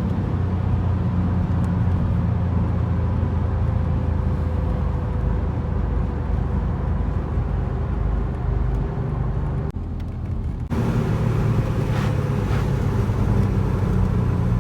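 Audi RS4 engine running under load while driving, a steady drone that drops off for about a second near the ten-second mark, as on a gear change, then picks up again at a different pitch.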